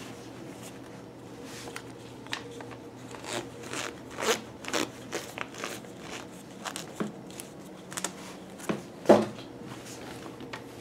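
Fabric rustling and scattered handling clicks as a heavy hoodie and its card tag are moved about, with one louder bump about nine seconds in.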